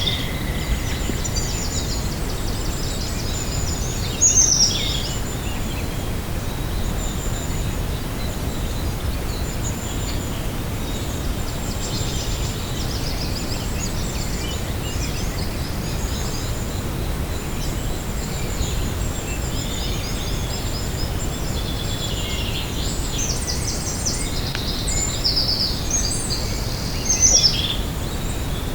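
Wild birds singing and calling, many scattered high chirps and trills with a few louder falling calls about four seconds in and near the end, over a steady low rumble.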